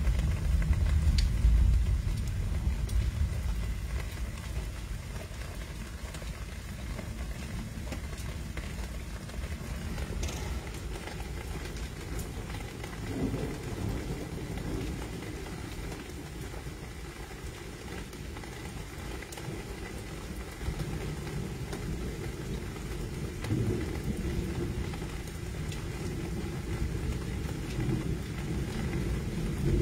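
Thunderstorm noise: steady rain with a low rumble, loudest about a second or two in and swelling again near the end.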